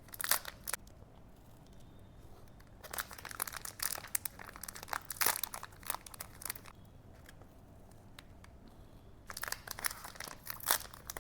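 A savoury protein bar's plastic wrapper crinkling and tearing, and the crisp bar crunching as it is bitten, in three bouts of sharp crackles: a short one at the start, a long one a few seconds in, and another near the end.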